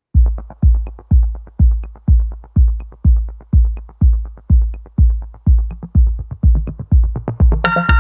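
Electronic intro music: a steady deep kick drum on every beat, about two beats a second, with light ticks between; a bright synth chord comes in near the end.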